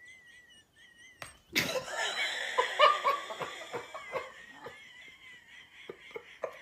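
A person laughing: a sudden loud burst of laughter about a second and a half in, breaking into short gasping giggles that fade away.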